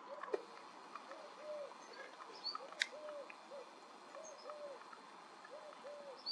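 A bird cooing: soft, low two-note calls repeated about every second and a half, with faint higher chirps of small birds and a single sharp tick about three seconds in.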